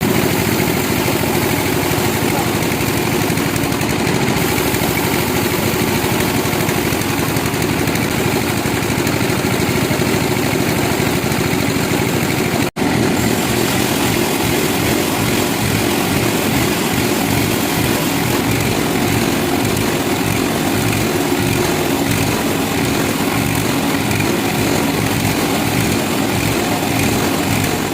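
Sawmill machinery running steadily: a continuous engine-driven drone with a rough low hum. It drops out for an instant about 13 seconds in.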